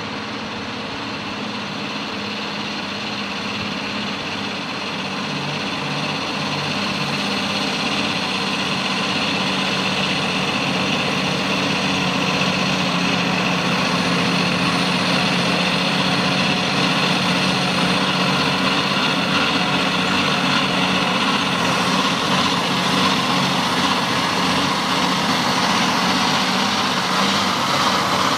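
Diesel engine of a loaded MAN logging truck running steadily, growing louder as the truck draws near.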